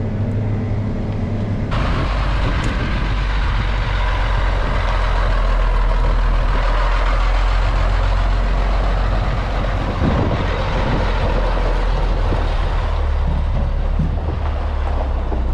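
Combine harvester's diesel engine running steadily with a low drone as the machine travels, a louder rushing noise joining about two seconds in.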